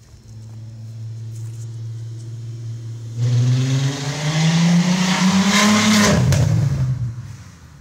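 Straight-piped VW Jetta GLI exhaust running low and steady, then about three seconds in the car accelerates hard, the exhaust note getting much louder and rising in pitch for about three seconds. It then drops in pitch and fades as the car passes and pulls away.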